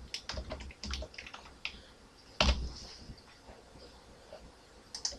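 Computer keyboard typing: a handful of quick key clicks in the first two seconds, one louder click about two and a half seconds in, then a few faint clicks near the end.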